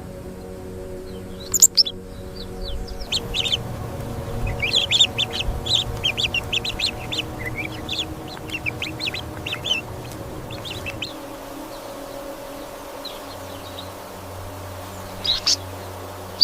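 Birds chirping in quick runs of short, high calls for several seconds, then only a few scattered calls, over soft background music with held tones.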